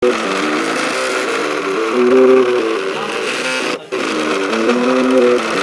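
MakerBot 3D printer's stepper motors whining at shifting pitches as the print head moves, each change of move jumping the tone up or down. There is a brief break just before the four-second mark.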